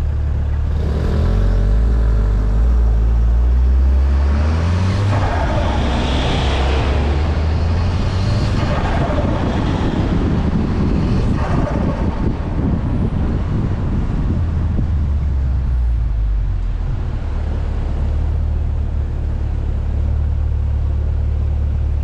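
Volkswagen Golf R Mk6's turbocharged four-cylinder engine running under way, rising in pitch over the first few seconds, with short rushing surges about five, eight and eleven seconds in.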